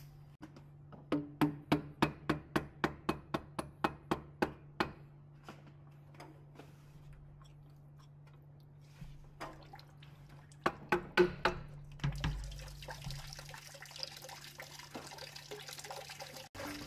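A quick run of sharp clicks, about four a second for a few seconds, then a few more knocks while the water pump is worked loose from a Toyota Hilux 5L diesel engine. From about twelve seconds in, coolant trickles and drips out of the opened pump housing.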